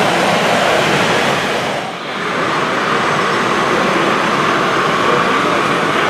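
Steady running noise of radio-controlled model construction vehicles, a model heavy-haulage truck and a crawler loader, with a brief drop in level about two seconds in.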